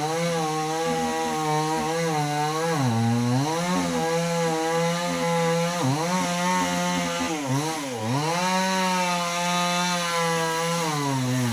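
Two-stroke chainsaw running at high revs while cutting into an oil palm trunk, its pitch dipping briefly several times as the chain bogs down in the wood, then climbing back.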